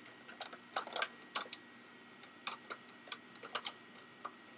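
Faint, irregular clicks and taps of hard plastic parts knocking together as a black plastic piece is lined up against an Xbox 360 Slim's casing, about a dozen in all.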